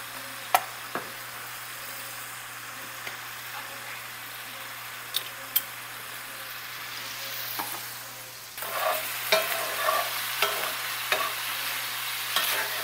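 Ground beef and onions frying in cast-iron skillets, a steady sizzle with a few sharp clicks in the first half. From about two thirds of the way in, a spatula stirs and scrapes the browning ground beef around the cast-iron skillet in repeated strokes, louder than the sizzle.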